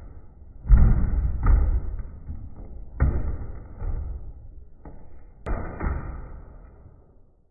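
Nerf darts hitting a stack of cardboard tissue boxes and the boxes tumbling down: a series of dull thuds, about five in all, the loudest about a second in, each trailing off.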